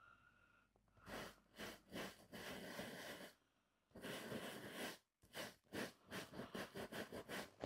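Faint scratchy brushing of a stiff bristle shoe brush working dark tan shoe wax: a few short strokes, two longer scrubbing stretches, then quick short strokes about four a second near the end.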